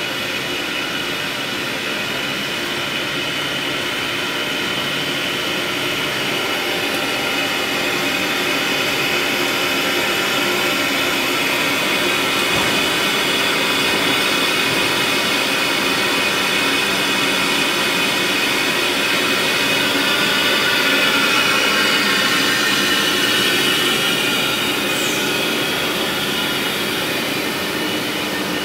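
PS foam sheet extrusion line running: a steady, loud machine hum and hiss with several high whining tones, swelling slightly about two-thirds of the way in.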